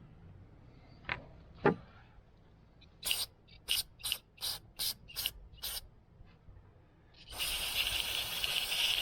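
Two small knocks, then about eight quick rasping strokes as a fouled carburetor float bowl is scraped, then a steady hiss of aerosol carb cleaner spraying, starting about seven seconds in.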